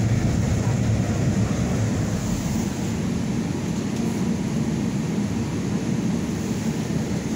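Steady low drone of a city bus's engine and road noise, heard from inside the bus cabin while it is moving.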